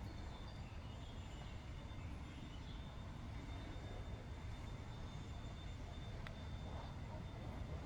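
Steady low background rumble outdoors, with a faint steady high tone and a single sharp click about six seconds in.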